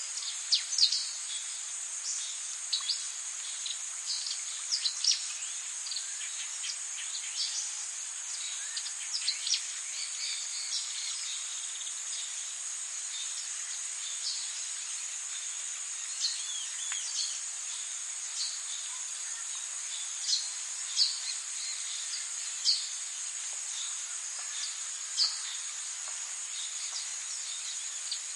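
Forest ambience: a steady high-pitched insect drone, like crickets, with short bird chirps scattered throughout.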